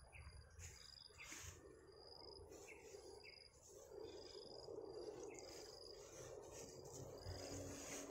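Faint high chirps repeating about once a second, an insect calling, over quiet outdoor background noise.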